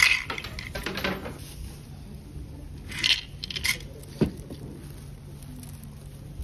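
Wooden omikuji fortune box being shaken and handled, its sticks rattling in clusters of clicks at the start and again about three seconds in, then a single knock about four seconds in.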